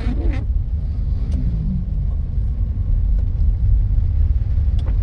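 Car driving along a road, a steady low rumble of engine and tyres.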